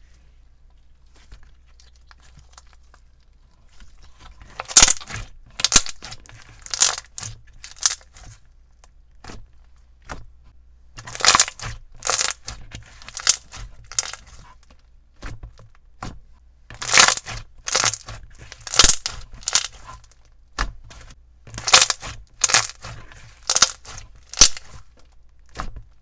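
Thick clear slime squeezed, stretched and pressed by hand, giving clusters of sticky crackles and pops about once a second after a quiet start.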